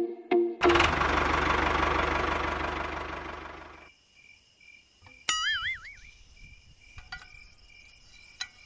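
A loud hiss that fades away over about three seconds, then a brief warbling tone about five seconds in, over a faint, steady chirping.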